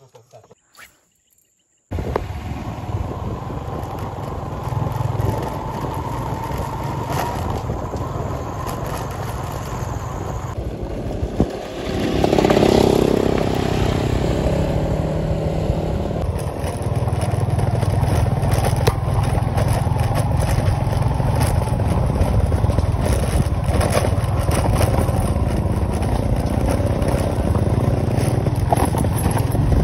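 Motorcycles running as they ride along, a steady engine and riding noise that starts suddenly about two seconds in and shifts abruptly a few times.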